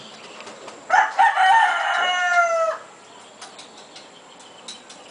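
A rooster crowing once, a single call of about two seconds that starts about a second in and drops off at the end.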